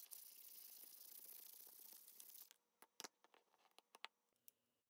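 Sandpaper rubbing on the steel of needle-nose pliers, a steady scratchy hiss as the rust is sanded off, stopping about two and a half seconds in. A few light metal clicks follow as the pliers are picked up and handled.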